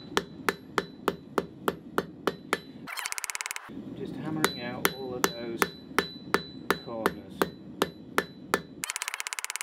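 Hand hammer striking a red-hot steel bar on an anvil in a steady rhythm of about three blows a second, drawing a taper back into the round, with a faint ring from the anvil. The hammering stops twice for a brief fast rattle, about three seconds in and again near the end.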